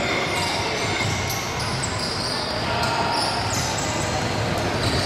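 Basketball game on an indoor wooden court: many short, high sneaker squeaks on the floor over the steady, echoing noise of the hall.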